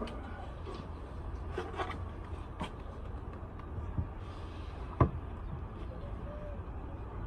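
A beehive and its feeder being handled: a few light knocks and clicks, then one sharp knock about five seconds in, over a steady low rumble.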